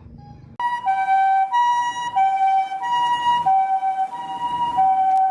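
Toy ambulance's electronic two-tone siren, alternating between a high and a low note about every 0.6 seconds, starting about half a second in.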